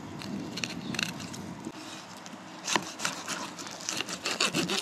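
Fillet knife cutting along a porgy's backbone on a plastic cutting board: irregular crackling clicks and scrapes as the blade works over the bones, busiest in the second half.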